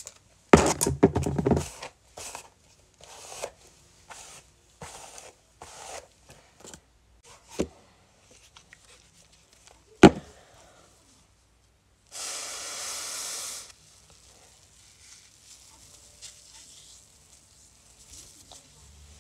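Rubbing and rustling as a cloth and skincare bottle are handled close to a phone microphone, with a couple of sharp knocks. About two-thirds of the way through, a steady hiss lasts for about a second and a half.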